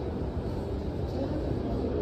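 Busy indoor shopping-mall ambience: a steady hubbub of crowd noise with faint music underneath.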